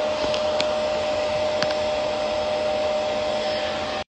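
Hair-dryer hat running on the wearer's head: a steady rush of blown air with a steady hum in it, cutting off suddenly right at the end.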